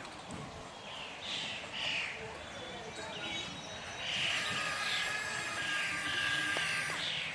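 Birds chirping in short repeated calls over background noise, with a steady high whine joining about four seconds in.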